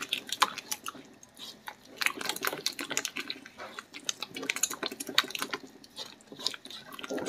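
A spatula stirring and scraping a thick, lumpy flour-and-water paste in a pot, making irregular wet clicks and squelches that grow busier about two seconds in. The paste is cooking and thickening.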